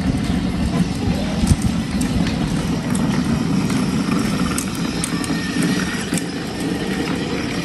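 Car engine idling steadily, a low hum, with a few light clicks over it.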